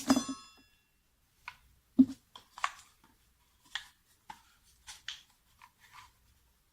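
Scattered light clicks and knocks, about ten over several seconds, with one louder knock about two seconds in and a brief metallic ring at the start: a cordless oscillating multi-tool and its accessories being handled, not running.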